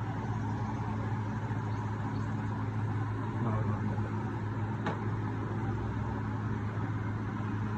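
Toyota Corolla GLi engine running steadily, with a constant low hum, and a single sharp click about five seconds in.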